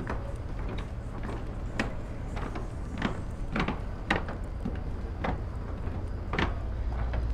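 Footsteps on dock decking, a little under two steps a second in an even walking rhythm, over a steady low rumble.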